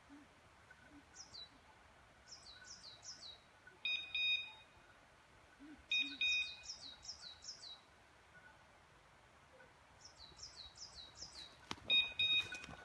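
A pointing dog's electronic beeper collar sounds three short, loud beeps, about 4, 6 and 12 seconds in: the point-mode signal that a dog is holding point. Between the beeps a small songbird sings repeated series of high, falling notes, and there is rustling near the end.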